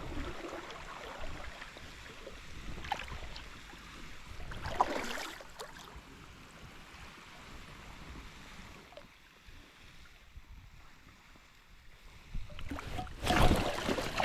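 Steady rush of high, fast creek water, with a few brief knocks and a louder burst of noise about thirteen seconds in.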